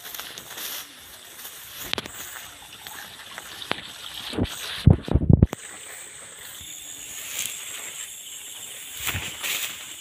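Footsteps and rustling through a wet rice field, with a cluster of heavy thumps about five seconds in. Night insects chirr steadily underneath.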